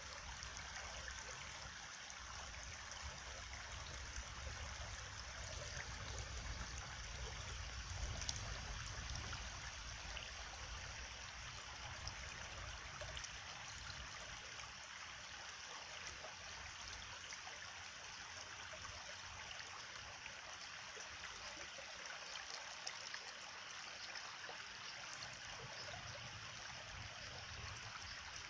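Stream water running and trickling steadily, with a low rumble underneath.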